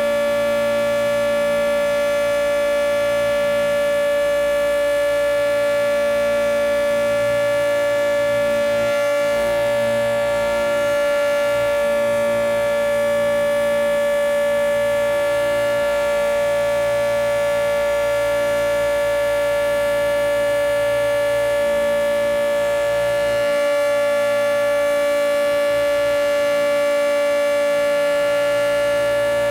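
Federal Signal 2T22 two-tone outdoor warning siren sounding a loud, steady chord at full speed during a siren test. It is recorded very close up, so the audio is overblown.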